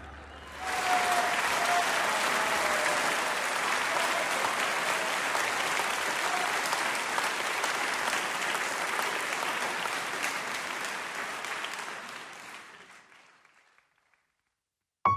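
An audience applauding. It starts about a second in, holds steady, then dies away to silence near the end.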